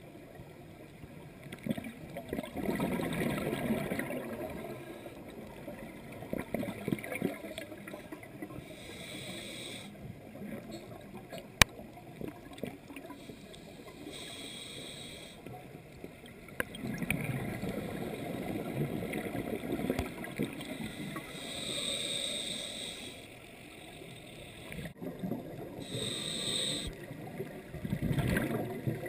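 Scuba diver breathing through a regulator underwater: a short hissing inhale every few seconds, and long bubbling exhales in between. One sharp click near the middle.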